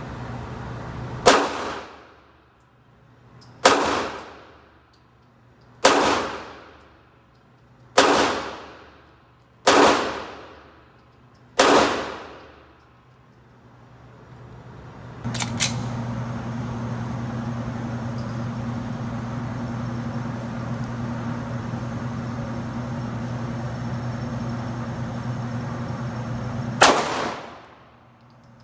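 Six gunshots about two seconds apart, each ringing out with a long echo in an indoor range. Then an electric target-carrier motor hums steadily for about eleven seconds and stops with a clank.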